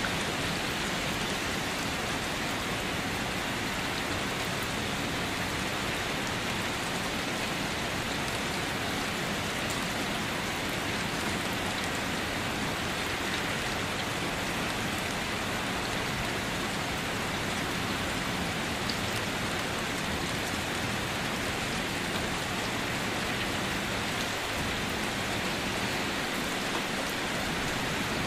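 Rain falling steadily on a wet surface: a continuous, even hiss of drops with no breaks.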